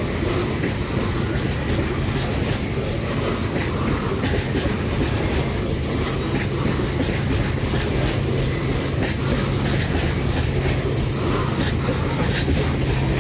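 Babaranjang coal train hauled by a CC 205 diesel locomotive rolling on, with a steady low drone and wheels clicking over the rail joints.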